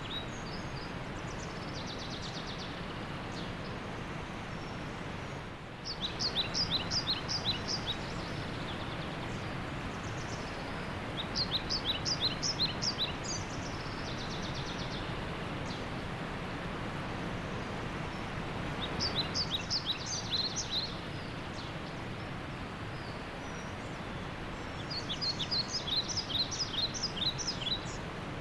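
Steady rush of a waterfall, with a bird singing over it: about four loud phrases of quick, high, falling notes, each phrase about two seconds long.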